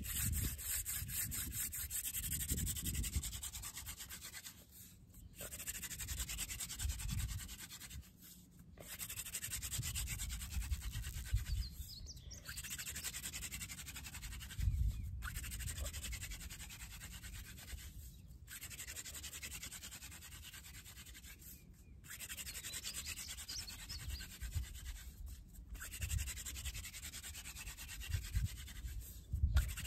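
Hand drill friction fire: a wooden spindle spun fast between the palms, grinding into a wooden fireboard with a rubbing hiss. The hiss comes in runs of about three to four seconds, broken by short pauses as the hands go back to the top of the spindle.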